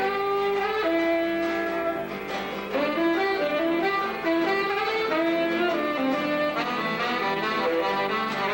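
Small band playing live: a saxophone plays a melody of held notes that step up and down, over electric bass and guitar.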